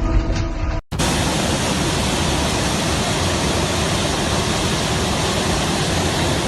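Music cuts off under a second in, followed by a steady, even rushing noise with no tones or distinct events in it.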